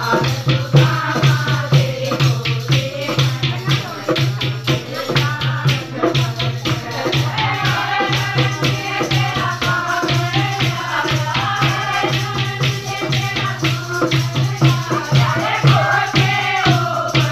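A group of women singing a folk song together to a fast, steady beat of hand-clapping and rattling percussion with a pulsing low thump.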